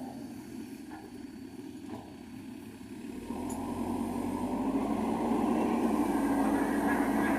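Diesel engine of heavy earthmoving machinery running, quieter at first and growing steadily louder from about three seconds in.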